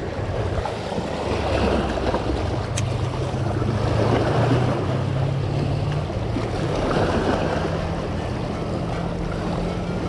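Small waves lapping and splashing against seawall rocks, the wash swelling about three times, with wind on the microphone and a steady low hum underneath.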